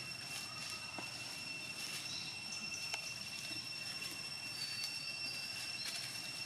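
A steady, high-pitched drone of forest insects, with a couple of sharp clicks and faint rustling of dry leaves underfoot.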